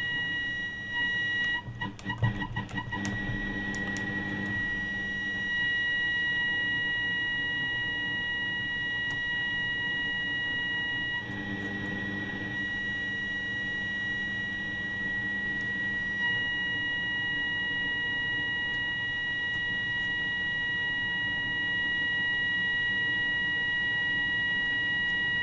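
A steady, high test-signal tone comes through the speaker of an Arvin 450-TL All American Five valve radio tuned to the signal generator's 1400 kHz carrier while the oscillator is being aligned. It crackles and wavers for a couple of seconds near the start and again briefly near the middle as the trimmer is adjusted.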